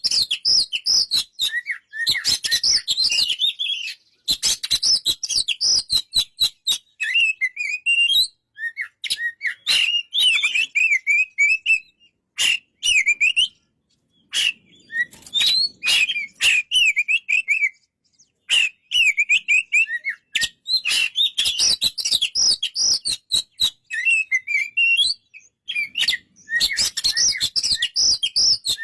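Oriental magpie-robin singing: rapid, varied warbling phrases that bend up and down in pitch, broken by brief pauses, mixed with many sharp clicking notes.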